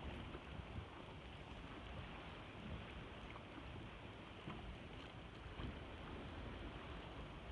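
Wind buffeting the microphone: a faint, steady, low rumble with small irregular gusts.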